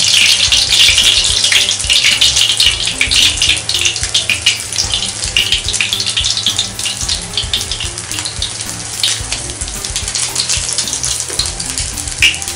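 Minced-mutton chapli kabab sizzling and crackling in oil on a nonstick tawa. The sizzle eases a little after the first few seconds.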